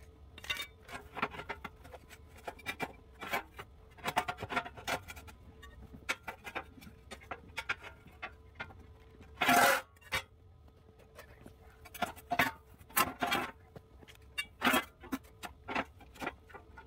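Metal parts and hand tools being handled at a workbench: irregular clicks, knocks and rubbing, with one louder, longer scrape about halfway through. A faint steady hum runs underneath.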